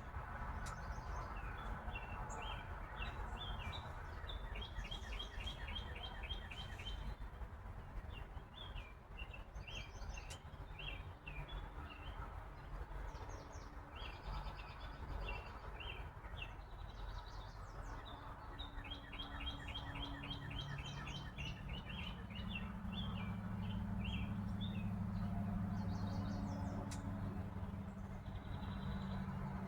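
Small birds chirping in runs of quick repeated notes throughout. A steady low hum grows louder about two-thirds of the way in.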